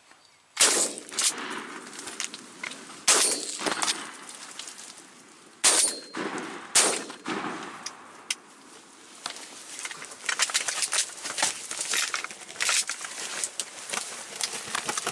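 Shotgun shots at turkeys: a sharp blast about half a second in, then more blasts around three, five and a half and seven seconds as the birds flush, followed by a rapid run of small clicks and rustles in the last few seconds.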